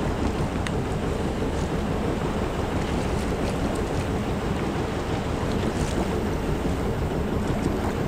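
Wind buffeting the microphone: a steady low rumble with hiss above it.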